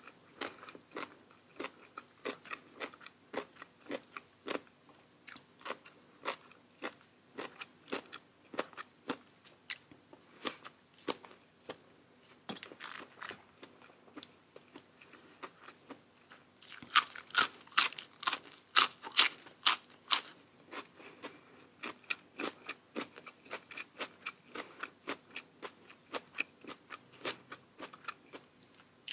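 Close-miked chewing and crunching of crisp food: a steady run of small chewing clicks, with a short spell of much louder crunching bites about two thirds of the way through.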